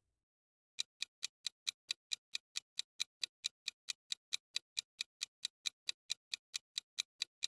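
Clock-ticking sound effect marking a quiz countdown timer: short, even ticks at about four and a half a second, starting about a second in.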